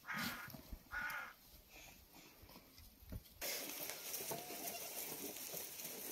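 A goat kid bleating twice, about a second apart. From about three and a half seconds in, a steady hiss takes over.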